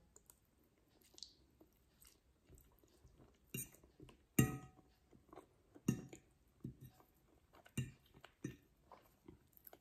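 A person chewing a mouthful of spaghetti close to the microphone: short, irregular wet mouth sounds about half a dozen times, separated by quiet gaps.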